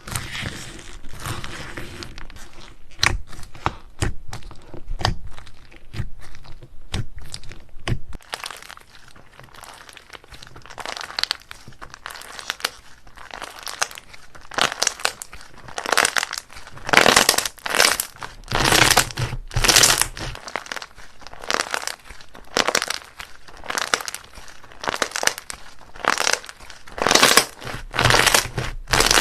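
Slime being squished and pulled, giving a stream of sharp crackly clicks and pops. They are sparse and quieter around the middle, then loud and dense through the second half.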